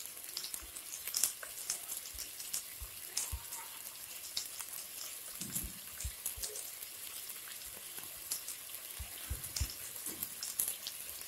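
Onions, tomato and green chillies frying in ghee and oil in a pressure cooker: a soft steady sizzle with many scattered crackles and pops.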